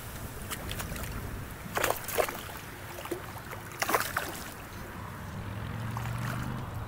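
Hooked smallmouth bass splashing at the surface beside a kayak, in two short bursts about two seconds apart, over wind and water lapping at the hull. A low steady hum comes in near the end.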